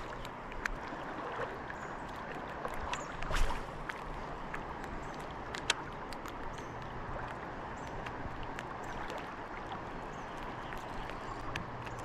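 Steady rush of river water around a kayak, with scattered sharp clicks and knocks; the loudest click is about three and a half seconds in.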